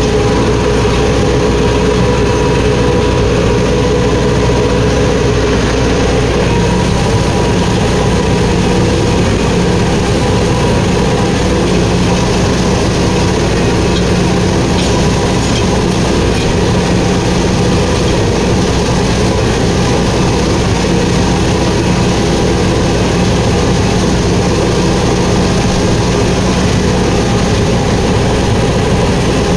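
Massey Ferguson 4WD tractor's diesel engine running steadily under load, driving a rear rotavator that churns a flooded rice paddy into mud: puddling the field before rice planting. The engine note shifts slightly about six seconds in.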